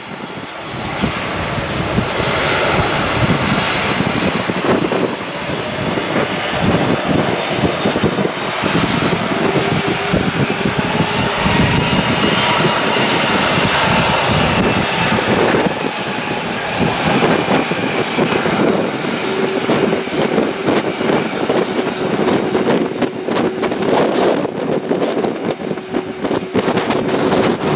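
Boeing 767-200's twin jet engines running at taxi power: a steady rushing noise with a faint high whine, as the airliner taxis. Gusty wind buffets the microphone throughout.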